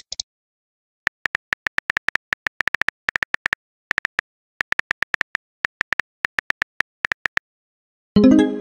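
Virtual phone-keyboard key clicks, several a second, as a text message is typed out, ending about a second before a louder, short pitched alert tone near the end as the message is sent into the chat.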